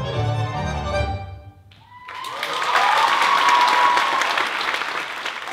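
Orchestral tango music with strings ends about a second and a half in; after a brief pause, audience applause with cheering starts and carries on.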